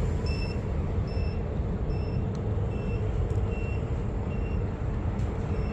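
Short, high electronic beeps repeating about twice a second, an alarm from the FPV gear, over a steady rushing noise.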